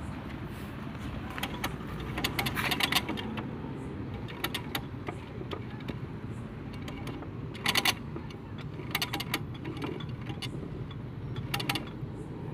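Metal tools and gearbox parts clinking and rattling in short clusters against a truck gearbox casing, over a steady low rumble.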